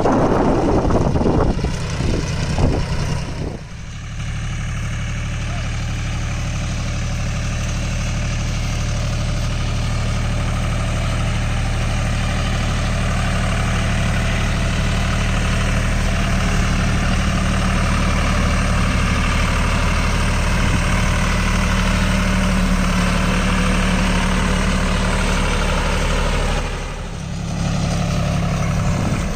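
John Deere tractor's diesel engine running steadily at a low, even speed, after a few seconds of rushing noise at the start. The engine sound dips briefly near the end, then comes back.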